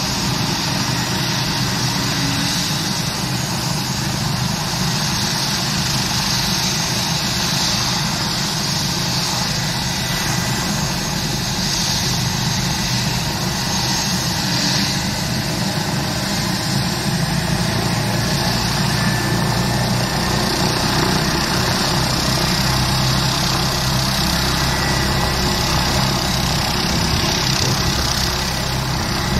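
Airbus H145 helicopter running on the ground before lift-off, its twin turbine engines and rotor giving a steady high whine over a low drone. The low drone grows a little stronger about halfway through.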